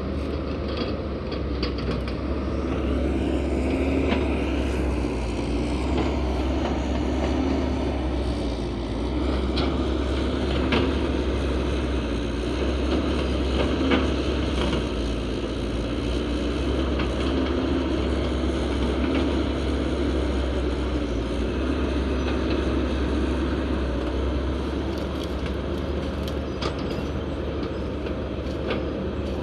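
Dump truck diesel engine running steadily with a low rumble, and a few light knocks or rattles now and then.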